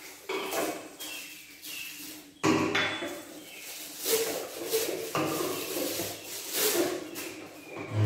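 Bulb-shaped spice jars clinking and knocking against each other and the carousel spice rack as they are handled and set in place, a handful of irregular sharp clinks, with plastic packing crinkling.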